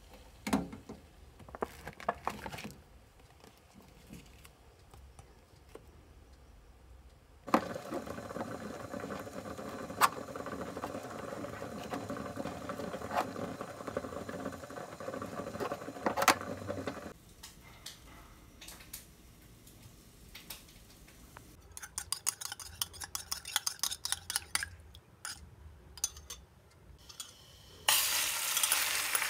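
Kitchen food-prep sounds: a knife cutting on a plastic cutting board and utensils clinking, with a steady rushing noise for about ten seconds in the middle and a run of quick clicks later on. Near the end, beaten egg poured into a hot frying pan starts to sizzle.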